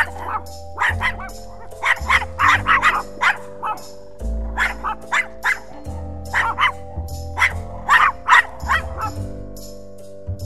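A puppy barking in a quick string of short, high yaps as it play-bows at its own reflection in a mirror, over background music. The barking stops about a second before the end.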